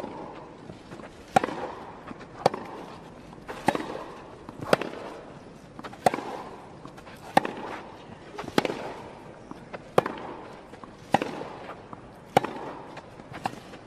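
Tennis racket strings striking the ball in a long baseline rally: a dozen sharp pops, about one every second and a quarter, alternating near and far players, over a low crowd hush.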